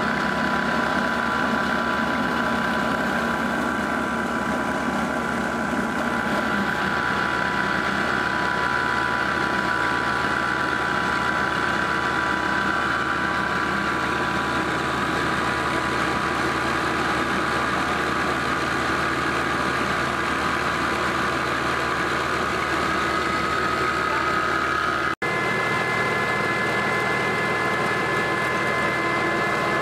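Massey Ferguson 240 tractor's three-cylinder diesel running steadily, driving a flour chakki through its PTO shaft as it grinds wheat, with a steady high whine from the mill. About 25 seconds in the sound drops out for an instant and gives way to a belt-driven grinding mill running, its whine at a slightly different pitch.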